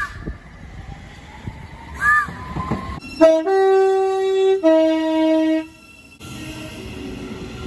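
Two-tone train horn sounding: a brief low note, a longer higher note, then the low note again, lasting about two and a half seconds from about three seconds in. Before it, two short chirps; after a sudden cut, a steady noise.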